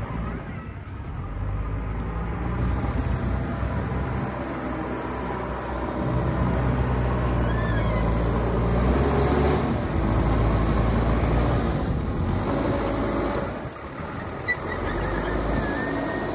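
Diesel engines of a JCB 3DX backhoe loader and a Mahindra tractor running. The engine note shifts up and down as the backhoe loader works, getting louder about six seconds in and dipping briefly near the end.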